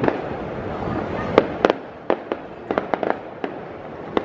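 A run of sharp, irregular cracks, about a dozen over a few seconds, over a steady background hiss.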